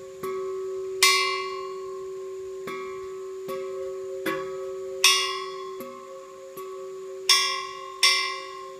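Tall standing metal garden gong struck again and again by a ball-ended striker pulled on a cord: about ten strikes at uneven intervals, four of them loud, each renewing one steady ringing tone that hums on between strikes.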